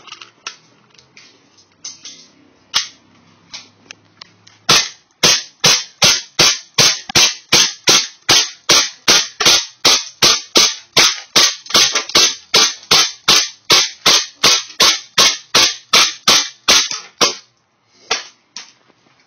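WE P226 gas blowback airsoft pistol fired in a long steady string of semi-auto shots, about three a second, starting about five seconds in and stopping near the end after some three dozen shots. Light clicks of the pistol being handled come before the shooting.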